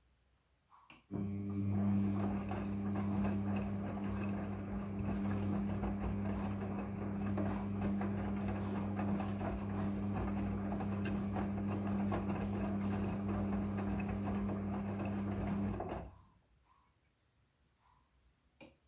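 Midea front-loading washing machine running with a steady electric hum and mechanical whirr, switching on with a click about a second in and cutting off suddenly near the end, followed by a few faint ticks.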